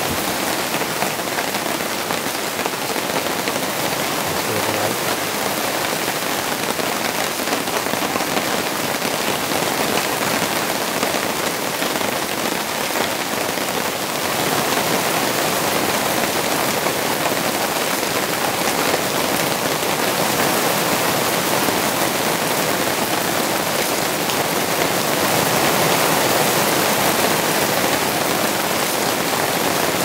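Steady autumn rain falling in a forest campsite, an even patter and hiss that gets a little heavier about halfway through.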